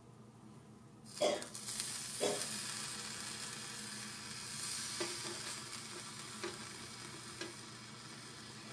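Small round slices of ham sizzling in a hot miniature metal pan. The sizzle starts suddenly about a second in as the meat goes down, with two knocks near its start and a few light taps later as a tiny spatula presses the slices.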